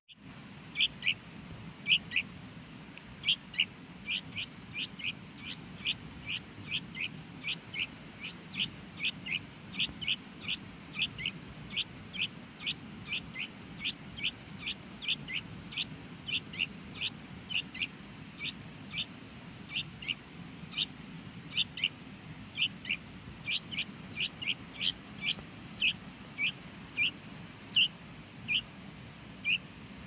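Bulbul chick giving short, sharp, high begging cheeps, two to three a second, without a break, as it gapes to be fed.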